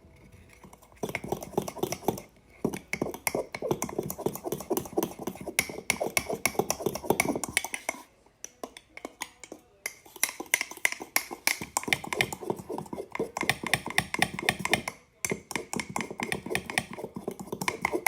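A fork stirring batter in a microwavable cup, clinking and scraping against the cup in fast, rapid strokes, in long runs with a pause about halfway through.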